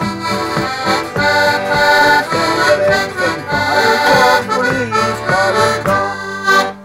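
Small button accordion playing a lively traditional tune, its reedy notes changing quickly over held chords; the playing stops right at the end.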